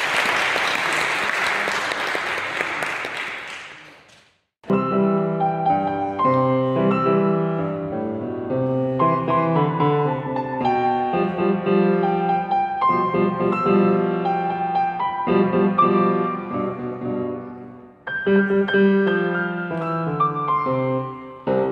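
Audience applauding, dying away about four seconds in. After a brief gap, a grand piano is played four hands, a melody over steady chords, with a short pause near the end before the playing goes on.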